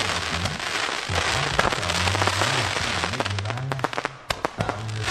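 Fireworks going off: a dense run of crackles and sharp pops over a steady hiss, with low pitched notes shifting underneath.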